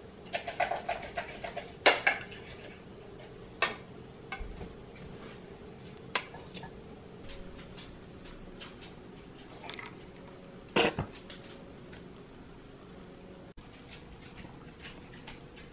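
Kitchen clatter of dishes, glassware and utensils: a run of clinks and knocks, with the loudest sharp clinks about two seconds in and again near eleven seconds.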